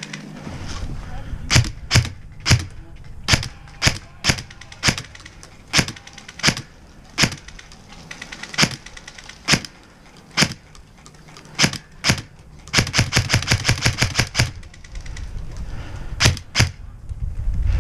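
G&G Combat Machine airsoft electric gun firing a long string of single shots at a steady pace, then a quick full-auto burst about thirteen seconds in, then two more single shots.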